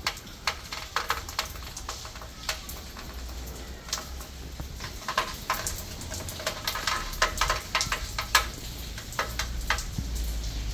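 Rain falling, with many separate drops striking close by over a steady hiss and a low rumble underneath.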